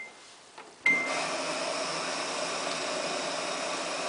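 A short electronic beep from the Samsung WF8804RPA washing machine, then, about a second in, water starts rushing steadily into the machine through its inlet valves. The machine is filling in its service test mode on the main wash and softener step.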